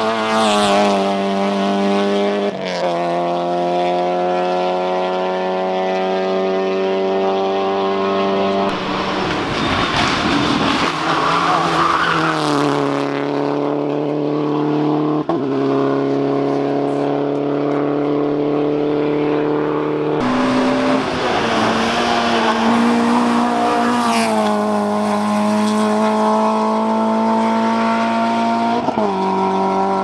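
Rally car engines at full racing throttle, pulling up through the gears: the pitch rises steadily in each gear and drops at each upshift, every few seconds. A Peugeot 306 rally car passes close by right at the start.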